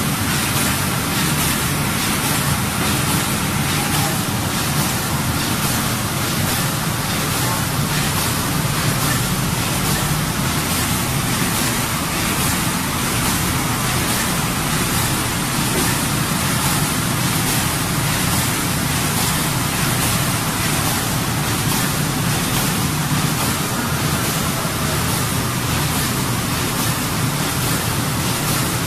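Automatic carton film window patching machine running at production speed: a steady, dense mechanical clatter with a fast regular beat as carton blanks are fed through.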